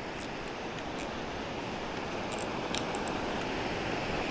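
Steady rush of water from a low-head dam spillway, with a few faint high ticks over it.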